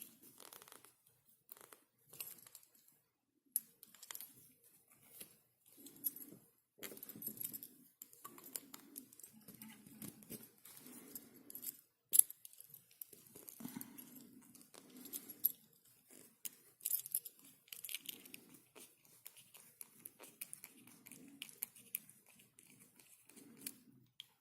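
Padlock being worked apart by hand, with scattered small metal clicks, taps and scraping as its core and pins are pushed out.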